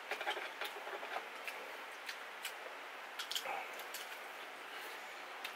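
Chopsticks tapping and clicking against dishes and plastic food containers in scattered, irregular light taps, with quiet eating sounds, over a faint steady hiss.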